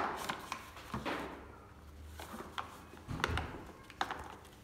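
Paper flour bag crinkling and rustling as it is opened and tipped, with plain flour sliding out into a plastic bowl; scattered light clicks and a soft low thud about three seconds in.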